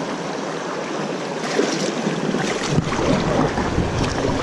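Steady rush of moving river water around a kayak, with wind buffeting the microphone.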